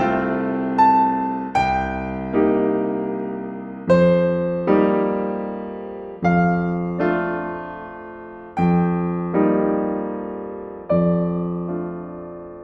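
Slow, gentle solo piano music: chords struck about every second, often in pairs, each left to ring and fade before the next.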